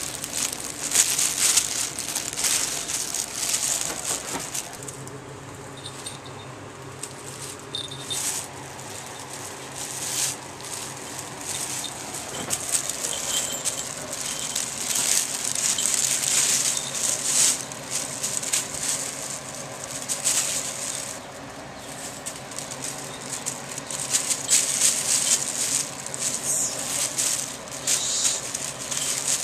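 Plastic bag crinkling and small collar bells jingling in irregular bursts as kittens play in and around the bag.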